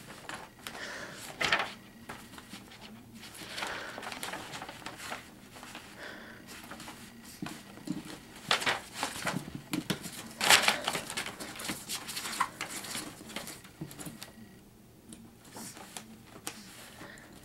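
Paper rustling and crinkling in irregular bursts as a Chiweenie puppy paws at and steps on a paper instruction booklet, loudest about ten seconds in.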